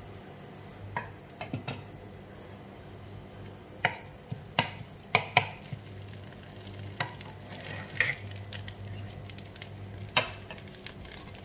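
Dried chillies frying gently in oil in a nonstick pan, with a soft sizzle under irregular sharp clicks as a wooden spatula stirs and knocks against the pan.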